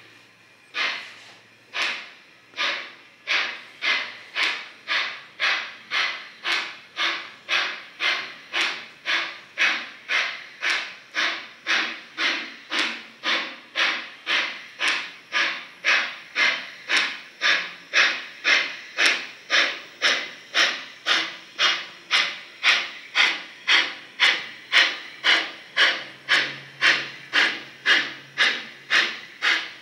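Steam exhaust chuffs of a sound-fitted model steam locomotive pulling away. The puffs start about a second apart and quicken to roughly two a second as the train gathers speed, getting louder.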